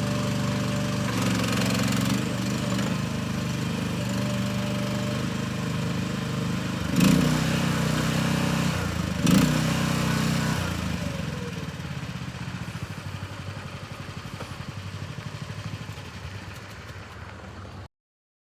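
Small engine of a BPE mini excavator running steadily, with two brief louder surges about seven and nine seconds in. From about eleven seconds it grows gradually quieter with a pulsing beat, then the sound cuts off abruptly near the end.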